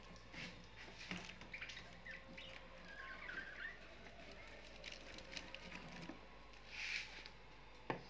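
Faint small clicks and scratches from a Fischer's lovebird moving and pecking in a wire cage, with a short soft twitter about three seconds in and a brief rustle near the end.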